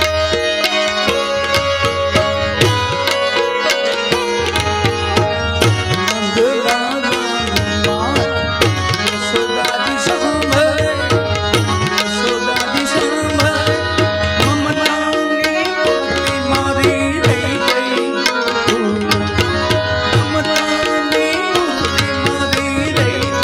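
Live Gujarati devotional dhun played by a small ensemble: tabla drumming in a steady rhythm under a harmonium and keyboard melody.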